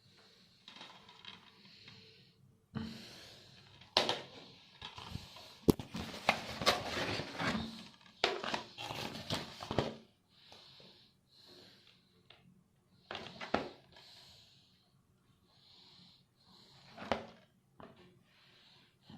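DVD and Blu-ray packaging being handled: plastic wrap crinkling and cases clicking, densest from about three to ten seconds in. Soft breathing close to the microphone comes through in the quieter stretches.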